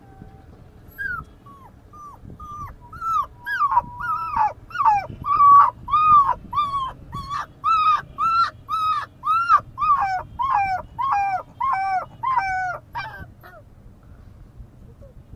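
Puppy whimpering in a long run of short, high cries, each rising then falling in pitch, about two a second. The cries are loudest in the middle and stop a couple of seconds before the end.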